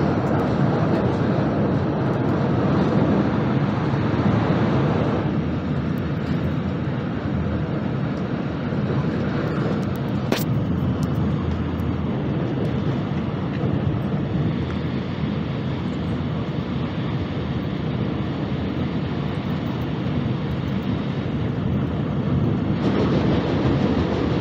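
Steady running noise of a Shinkansen bullet train at speed, heard inside the carriage: a dense rumble of wheels and rushing air, with one sharp click about ten seconds in. Near the end the noise swells suddenly as another Shinkansen passes on the next track.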